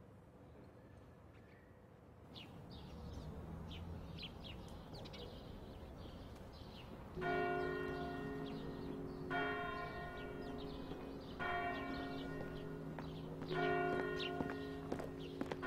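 A church bell tolling, four strokes about two seconds apart, each ringing on, beginning about halfway through. Small birds chirp throughout, starting a couple of seconds in.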